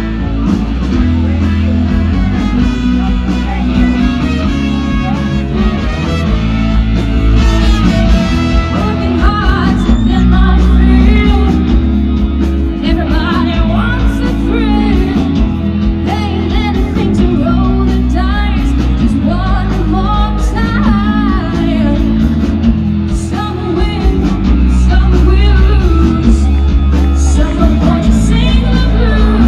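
Loud amplified rock music from a band: a singer over guitar and a heavy bass.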